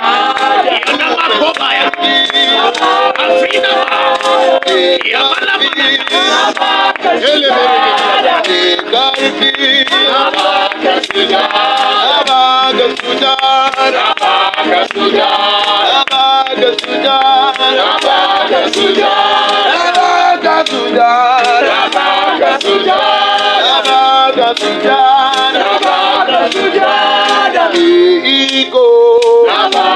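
A group of male and female voices singing a repetitive gospel worship chant together.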